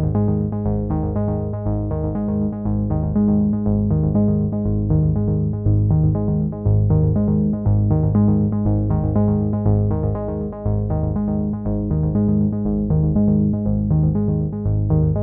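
Background music with a steady rhythm and a strong bass line.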